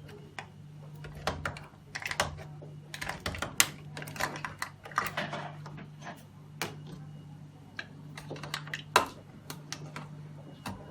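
Irregular clicks, taps and short rustles of plastic reagent tubing and fittings being handled and connected, over a steady low hum.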